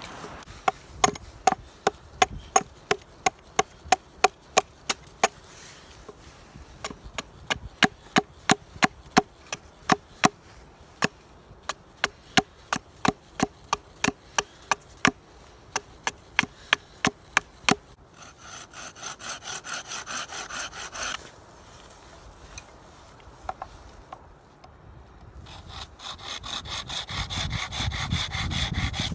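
Wood being worked with a hand tool: a long run of sharp wooden knocks, about three a second. Near the end come two spells of rhythmic rasping strokes, like sawing.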